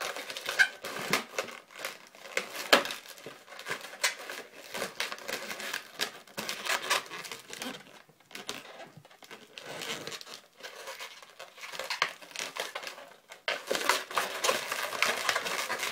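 Latex modelling balloons being twisted and pressed together by hand: irregular rubbing, crinkling and scraping of inflated latex against latex and skin.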